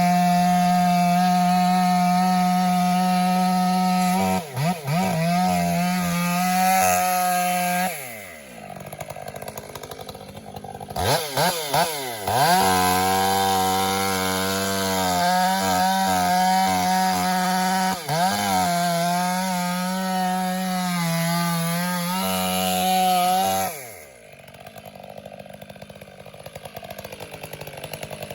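Two-stroke chainsaw cutting wood at full throttle, dipping in pitch as the chain loads in the cut. It drops to idle about eight seconds in, revs back up to cut for another twelve seconds or so, then drops back to idle near the end. This is the felling cut on a roped tree that is about to be pulled over.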